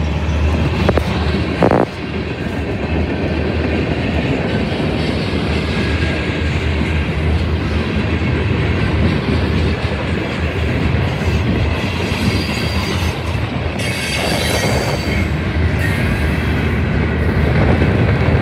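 Freight train cars, covered hoppers and bulkhead flatcars, rolling past on steel rails: a steady rumble and clatter of wheels on the track. There is a brief higher-pitched wheel squeal about fourteen seconds in.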